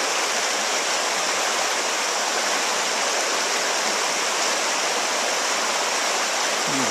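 River water rushing steadily through a shallow rocky rapid, an even whitewater hiss that does not change.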